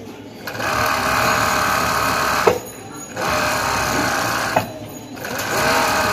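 Industrial picot (pico) sewing machine stitching a wide picot edge in three short runs with brief pauses between them. Each of the first two runs ends with a sharp click as the machine stops.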